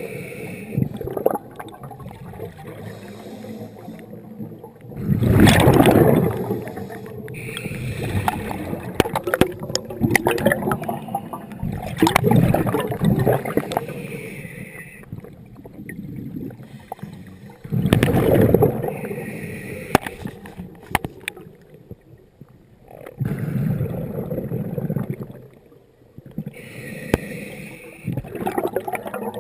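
Scuba diver breathing through a regulator underwater: a hissing inhale, then a loud gurgling rush of exhaled bubbles, repeating steadily about every six seconds.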